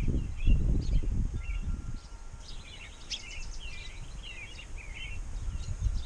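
Wild songbirds chirping in short, quick calls, with a busy run of chirps in the middle. Wind rumbles on the microphone for the first two seconds and is the loudest sound.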